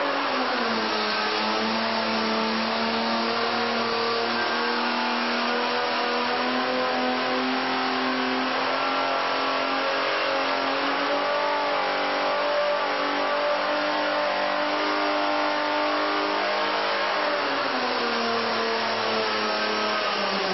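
Chevrolet LT1 6.2-litre small-block V8 running under test on an engine dynamometer. Its pitch drops just after the start, holds steady at a constant speed for most of the time, then falls again near the end.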